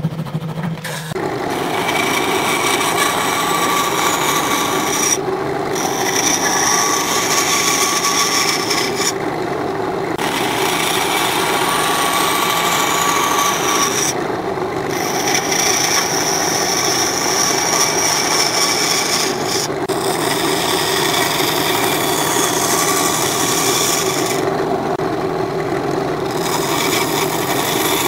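A handsaw stroking through wood for about a second, then a benchtop bandsaw running and cutting a series of short kerfs into a wooden strip. The blade's cutting hiss drops away briefly about every five seconds between cuts while the motor keeps running.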